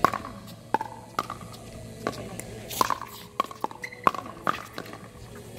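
Pickleball rally: paddles hitting a plastic pickleball, a quick series of sharp pocks, each with a short ring, coming unevenly about two a second.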